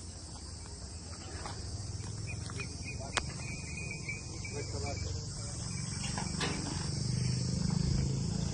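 Insects chirring steadily at a high pitch, over a low rumble that grows louder in the second half, with a single sharp click about three seconds in.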